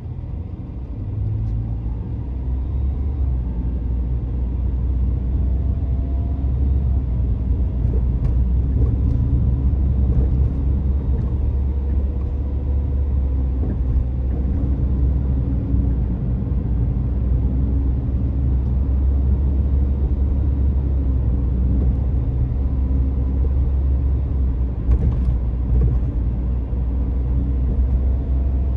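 Low, steady rumble of a car's road and engine noise heard from inside the cabin while driving. It grows louder over the first few seconds, then holds.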